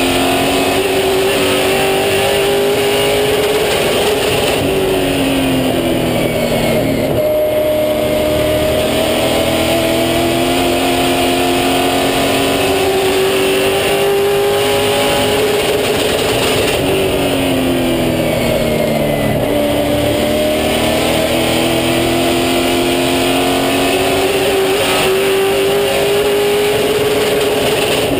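Super Late Model stock car's V8 racing engine under full throttle, heard from inside the cockpit: its pitch climbs steadily for several seconds, dips as the driver lifts for a corner, then climbs again, in a cycle repeating about every twelve seconds.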